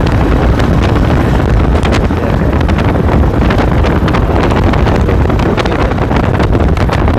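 Loud wind buffeting on a wired earphone's in-line microphone while moving, with a steady low rumble of vehicle noise underneath and scattered crackles.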